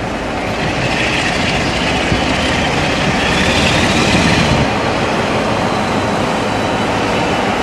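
Class 47 diesel-electric locomotive, with its Sulzer twelve-cylinder engine under power, pulling a passenger train away and approaching, wheels running over the track. A higher hissing sound comes in about a second in and fades after about four and a half seconds.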